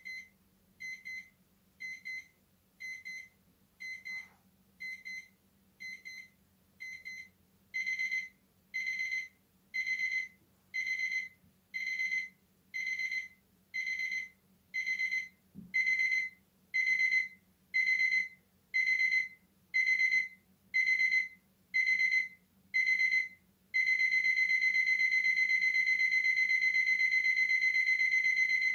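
Quartz analog alarm clock's electronic alarm beeping about once a second, a high single-pitched beep that grows louder and longer about eight seconds in. Near the end the beeps merge into one unbroken tone. It is a gentle-wake alarm that starts soft and builds.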